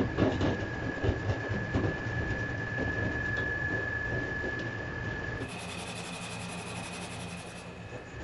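Rust being rubbed or sanded off a metal dish rack: scratchy abrasive rubbing over a steady high whine. The sound changes abruptly about five and a half seconds in to a different steady noise with higher whines.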